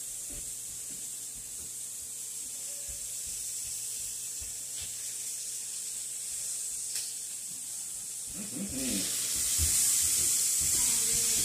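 Food frying in oil in a pan on the stove, a steady sizzling hiss that grows louder about nine seconds in, over a low steady hum.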